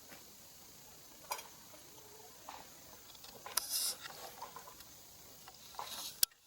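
A few scattered light clicks and rustles over a faint steady hiss, the loudest a short rustling scrape about three and a half seconds in; a sharp click near the end, then the sound cuts off abruptly.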